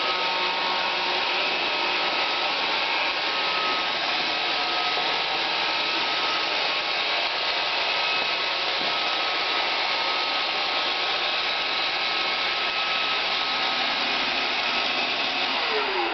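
Roomba 560 robot vacuum running: a steady whir of its vacuum motor and brushes, with a faint steady whine.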